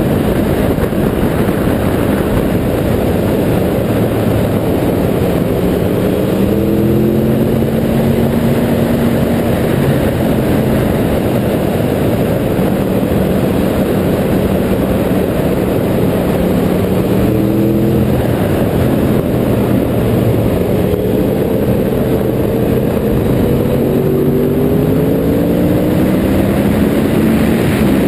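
Yamaha YZF-R1's inline-four engine heard onboard while riding, under heavy wind rush on the microphone. Its pitch climbs under throttle several times and falls back.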